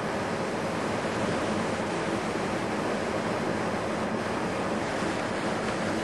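Steady, even rushing noise with no separate sounds standing out.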